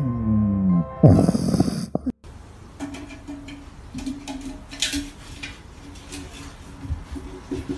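A sleeping puppy snoring, loud drawn-out snores that fall in pitch, for about the first two seconds. After that, fainter light knocks and clinks as a puppy noses and paws a metal canister across a rug.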